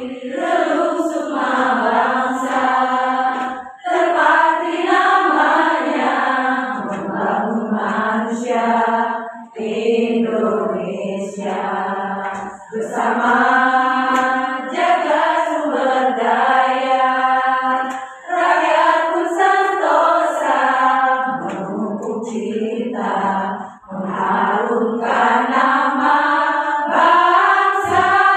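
A choir of mostly women's voices rehearsing a song, singing together in phrases broken by brief pauses for breath.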